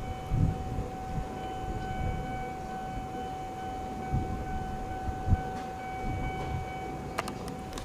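Steady high-pitched electrical hum from an Eizan Electric Railway 700 series railcar standing at the platform, over a low rumble of road traffic, with a few sharp clicks near the end.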